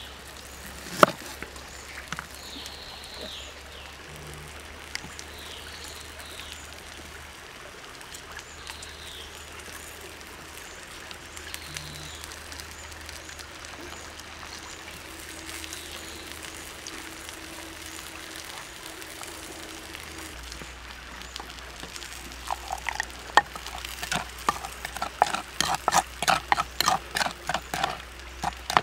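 A knife knocks once on a wooden cutting board about a second in as a lime is cut, and a few short, high, falling bird chirps come through the first half. From about 22 seconds, a wooden spoon scrapes and taps in quick strokes inside a wooden mortar, mixing a chili and lime dipping sauce.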